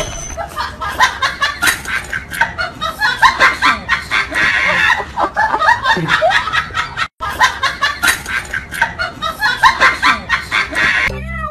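Laughter, several voices snickering and chuckling, dropping out for a moment about seven seconds in.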